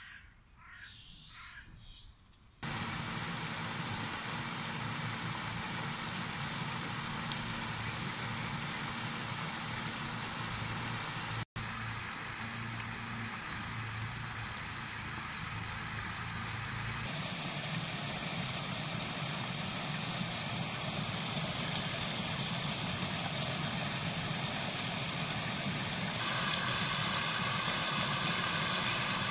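Faint bird chirps over quiet, then about two and a half seconds in a steady rush of splashing fountain water cuts in, with a low hum beneath it, growing a little louder near the end.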